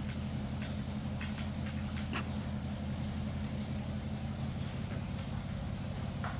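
A gas pressure washer's engine running steadily at constant speed, giving an even low hum, with a few faint short clicks now and then.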